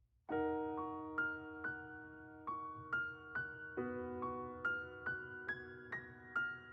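Slow piano music: sustained chords with a melody of single notes struck about twice a second, the song's instrumental intro before the singing starts.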